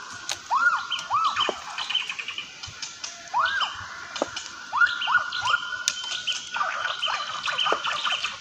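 Bird-like chirping: short arched calls that rise and fall, repeated every half second or so in runs, over a steady higher twittering.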